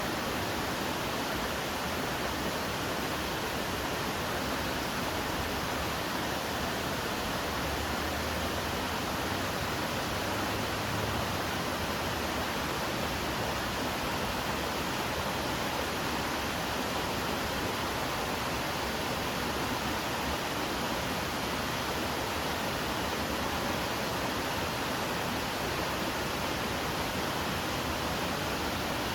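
Waterfall rushing steadily, a constant even roar of falling water with no breaks.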